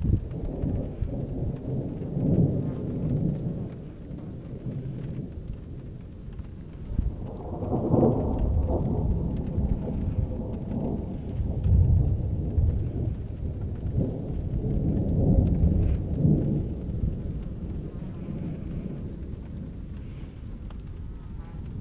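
Rolling anvil thunder from a thunderstorm: long low rumbles that swell and fade several times, easing off near the end.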